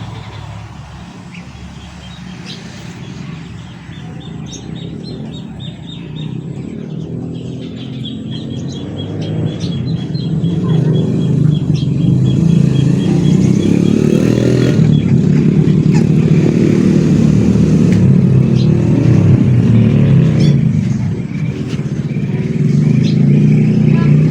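An engine running and growing steadily louder through the middle of the clip. Birds chirp over it in quick series of high notes during the first half.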